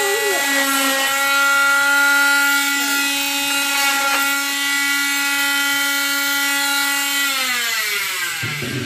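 Oscillating cast saw running with a steady high-pitched hum as its blade cuts through a leg cast, then switched off about seven seconds in, its pitch sliding down as the motor winds to a stop.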